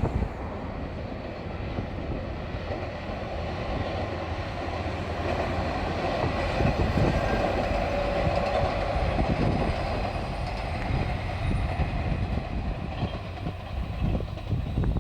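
JR Shikoku diesel railcar train passing close by. Its sound grows louder over the first half and stays loud to the end.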